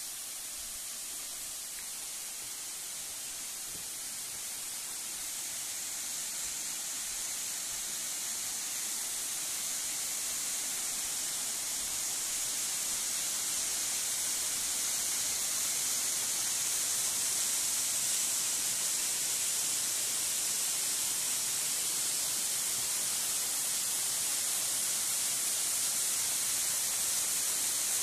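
Waterfall cascading down a rock face: a steady, hissing rush of falling water that grows gradually louder over the first half, then holds steady.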